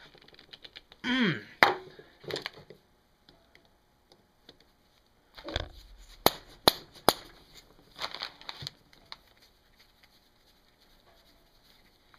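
Hand impact screwdriver being struck with a hammer to break loose a screw on the engine cover: a single sharp blow about a second and a half in, then three quick blows around six to seven seconds, with clatter of tools between.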